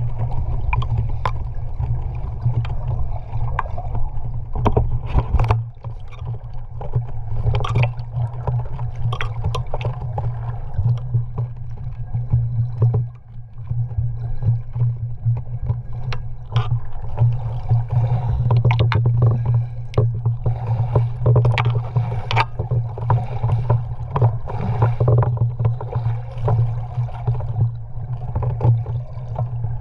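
Muffled underwater sound picked up by a camera in a waterproof housing just below the surface: water sloshing and bubbling, with a steady low hum and many scattered sharp clicks and pops.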